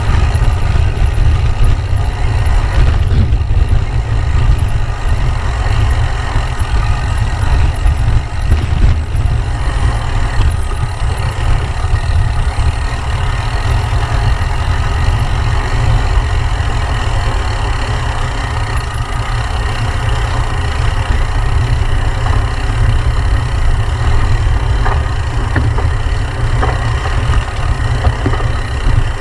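Wind buffeting the camera's microphone and tyres rumbling over a dirt single track as a gravel bike descends: a steady, heavy low rumble with a hiss above it.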